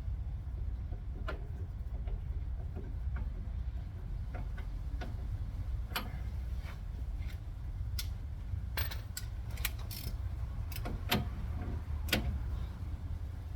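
Irregular sharp clicks and light metallic taps of hand tools and steering parts being handled, more frequent in the second half, over a steady low hum.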